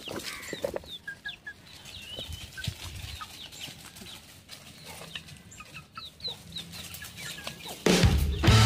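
A flock of free-range chickens clucking and making short scattered calls as they gather and peck, with a few light clicks. Background music starts loudly near the end.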